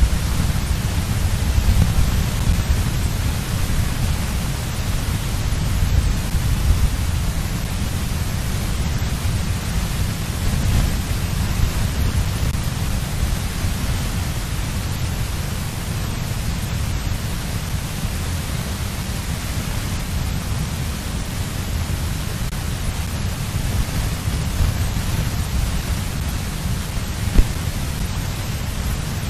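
Wind buffeting an outdoor microphone: a steady rushing hiss over a heavy, fluttering low rumble, stronger in the first half. One brief knock near the end.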